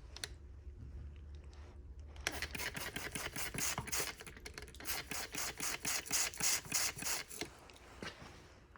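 Trigger spray bottle squirted over and over in quick succession: a fast run of short hissing sprays starting about two seconds in and stopping shortly before the end, with a few faint clicks and rustles before it.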